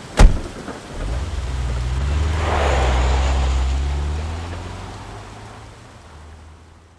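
A car door shuts with a sharp bang, then a car engine pulls away, swelling over the first few seconds and then fading out as it drives off.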